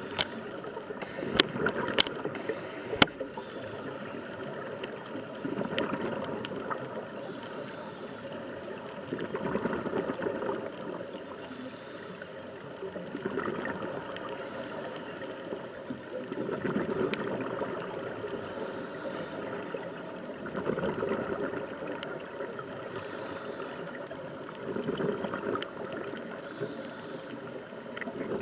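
A scuba diver breathing through a regulator underwater, in a regular cycle about every four seconds: a high hiss on each inhale, then a rush of exhaled bubbles. A few sharp clicks come in the first few seconds.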